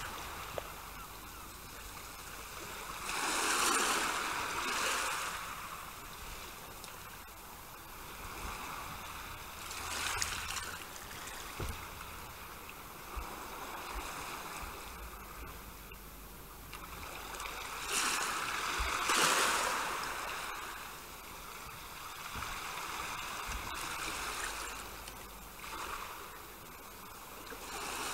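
Sea surf played as a stage sound effect: waves wash in and draw back, swelling four times roughly every six to eight seconds.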